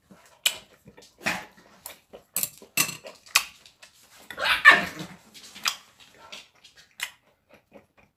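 Close-miked chewing of a mouthful of beef bulgogi: irregular wet mouth clicks and smacks, with a louder burst about halfway through.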